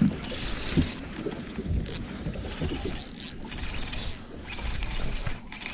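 Large spinning reel being cranked by hand, winding in line with a fish on, with a few dull knocks against the boat.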